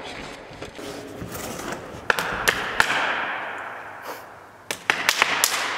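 Wheels rolling across a skatepark ramp in two passes, each opening with a sharp knock and fading away, with a quick run of clacks near the end.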